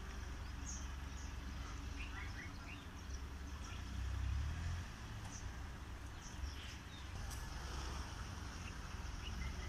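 Wind buffeting the phone's microphone, an uneven low rumble that swells about four seconds in, with a few short bird chirps over it.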